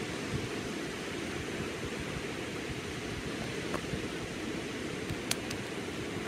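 Low surf breaking and washing onto a sandy beach: a steady rushing noise, with a couple of faint sharp clicks in the second half.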